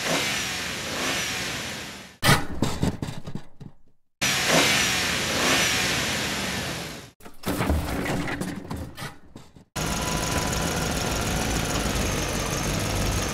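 Dubbed-in engine-revving sound effects: several separate revs that rise and fall in pitch and fade out, with short gaps between them. About three quarters of the way in they give way to steady background music.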